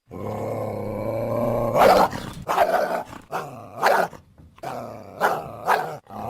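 Coyote growling steadily and low, then breaking into a series of short, sharp barks about two seconds in.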